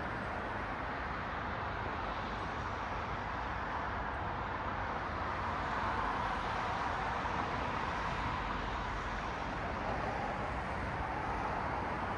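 Steady traffic noise of cars passing on a city street, swelling a little about six seconds in as one car goes by closer.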